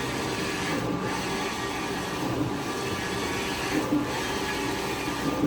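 Innolite eco-solvent printer running with a steady mechanical whir, with a short dip in the hiss about every one and a half seconds.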